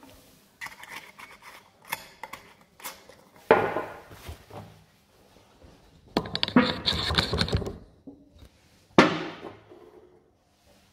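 Heated, sealed metal can cooling on a wooden bench, starting to implode as the pressure inside drops. Handling clicks come first, then loud sharp metallic pops and crinkling as its walls begin to buckle inward, with a sharp pop about nine seconds in.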